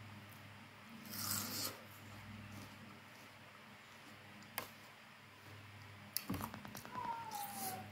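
Faint close-up eating sounds as she eats mango slices coated in sauce: a wet sucking burst about a second in, a sharp click midway, and a quick run of mouth clicks near the end, followed by a short whine falling in pitch. A low steady hum lies underneath.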